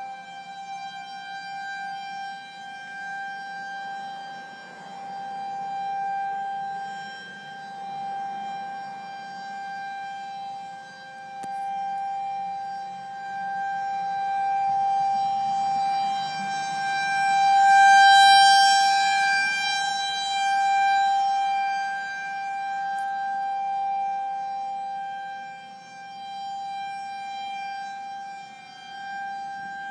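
Federal Signal outdoor warning siren sounding a wail test: one high, held tone that swells and fades in loudness, loudest a little past the middle.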